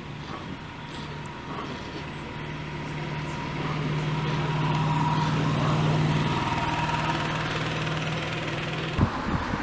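A motor engine running past, a low steady hum that swells to its loudest about six seconds in and then fades. A few sharp thumps near the end.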